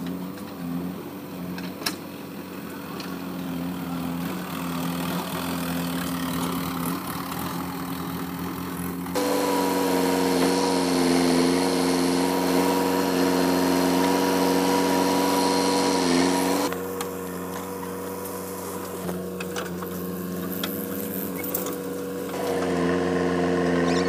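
Diesel engine of a JCB backhoe loader running while its arm digs soil and loads it into a tractor trolley. The engine sound is steady, jumps louder about nine seconds in, drops back at about seventeen seconds, and rises again near the end.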